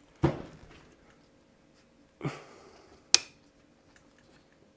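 Metal parts of a rotary table being handled on a workbench: a knock just after the start, another about two seconds in, and a sharp, louder metallic click a little after three seconds.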